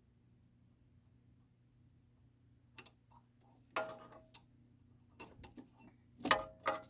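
A few sharp metallic clinks and knocks, a wrench working against the fittings of a hydraulic hose, the loudest a little before the end, over a faint steady low hum.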